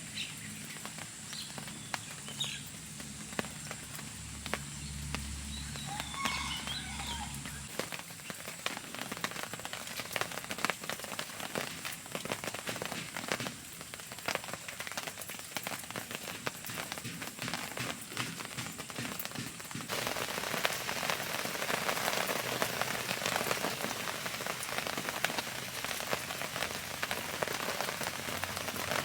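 Rain falling on surfaces, a steady patter full of individual drops ticking. It becomes heavier and denser about two-thirds of the way through.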